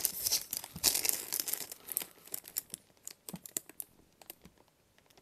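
Clear plastic wrapping crinkling as it is handled: a run of sharp crackles, busy at first, thinning out and fading away over the last couple of seconds.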